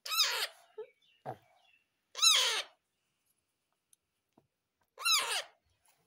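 Baby parrot calling three times, each call about half a second long with a rapidly wavering pitch: near the start, a little after two seconds, and about five seconds in.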